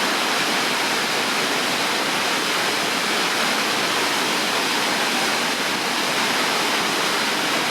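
Waterfall pouring, a steady, unchanging rush of falling water.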